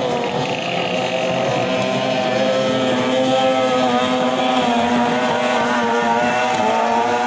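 Several 15 hp outboard motors on racing longboats running flat out, their overlapping engine notes wavering slightly in pitch.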